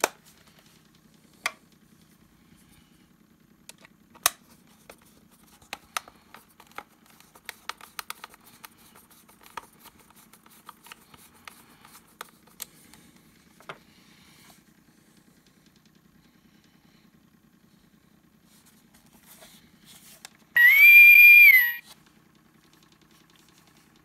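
Clicks and knocks of AA batteries and the plastic case being handled and fitted. About 20 seconds in, the Star Trek Enterprise intercom replica's electronic hailing whistle sounds once from its small speaker: a bosun's-whistle call that glides up, holds, then glides down, about a second and a half long.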